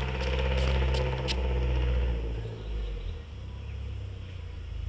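Engine of a turbocharged Proton Gen2 1.3 automatic running with a low, steady note. It is loud at first and eases off to a quieter hum about two and a half seconds in.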